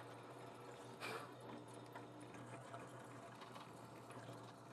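Drill press running faintly, a steady low motor hum, with a brief scrape about a second in.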